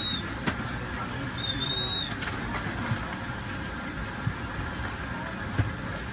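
Steady background noise of an airliner cabin, with a few light knocks and a short high beep-like tone about one and a half seconds in.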